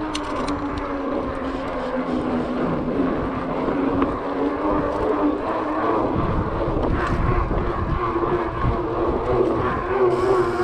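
Fat-bike tyres rolling along a wooden boardwalk: a steady droning hum over a low rumble that wavers with speed, with a few sharp clicks just after the start.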